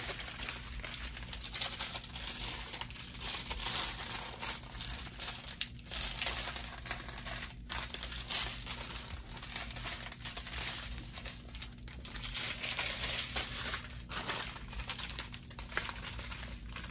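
Small plastic bags of diamond-painting drills crinkling as they are handled and shifted, a continuous rustle that rises and falls.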